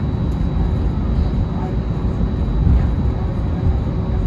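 Steady jet-engine and airframe rumble heard from inside the cabin of an Airbus A320neo-family airliner, with a faint steady whine over it.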